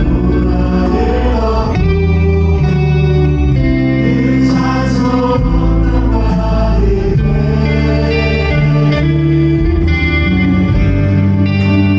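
Live contemporary worship music from a church praise team: voices singing a praise song over guitar and a full band with a strong bass line.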